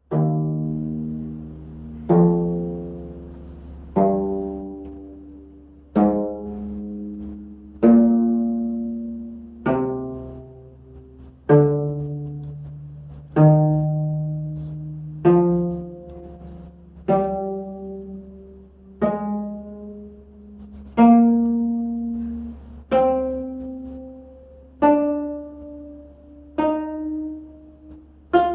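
25-string gayageum strings plucked one at a time, about one note every two seconds and generally moving up in pitch, each note ringing and dying away: the strings are being sounded in turn to check the instrument's tuning.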